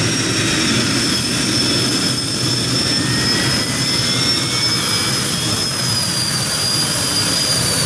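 Modified pulling tractor running at full power as it drags the weight sled down the track: a loud, steady engine noise with a high whine held over it.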